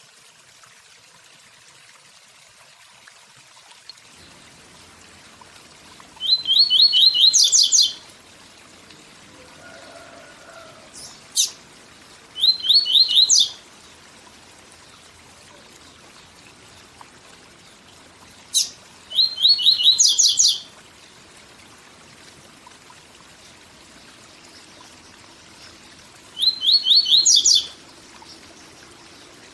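Papa-capim (Sporophila seedeater) singing its 'tui tui zel zel' song four times, each phrase a quick run of repeated notes climbing to a few high notes, with long pauses between. A steady waterfall rush runs underneath.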